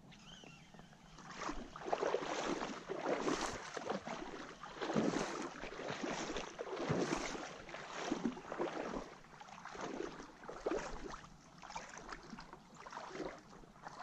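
Water sloshing and splashing close to the microphone in irregular surges about once a second.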